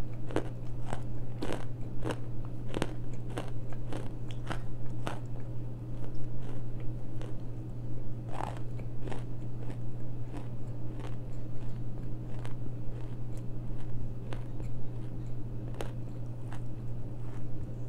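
Close-miked chewing of a mouthful of elephant clay, a medium-hard granular edible clay: sharp crunches come thick in the first few seconds, then thin out to scattered crunches and softer chewing. A steady low hum runs underneath.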